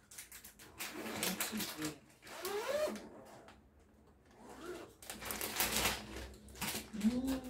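A zipper pulled along the top of a clear plastic bedding bag in a scratchy, rasping run, then the plastic crinkling and rustling as the bag is pulled open.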